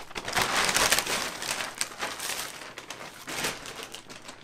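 Plastic packaging rustling and crinkling as a backpack in its clear plastic bag is pulled from its mailer and handled, loudest in the first second or so.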